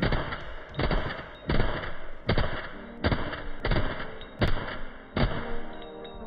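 Suppressed 5.56 AR-15 carbine with a 16-inch barrel and a Knight's Armament 556QDC/CRS-PRT suppressor, fired semi-automatically. There are about eight shots at an even pace, roughly one every three-quarters of a second, and they stop after about five seconds.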